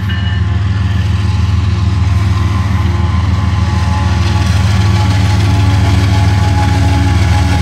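CSX diesel locomotive approaching and passing at the head of a container train: a steady low engine rumble that grows a little louder as it nears.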